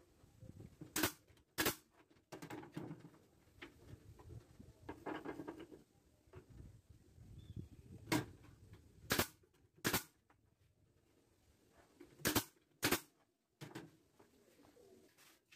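Pneumatic brad nailer firing nails into the joints of a wooden wine rack: about seven sharp shots, two near the start and a group of five in the second half, with wood being handled and knocked in between.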